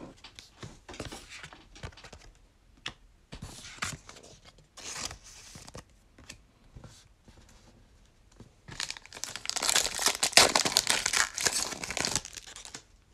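A foil trading-card pack wrapper from a 2021 Donruss Football mega box, crinkled in the hands and then ripped open. There are scattered light crinkles at first, then a louder, continuous run of tearing and crinkling from about nine to twelve seconds in.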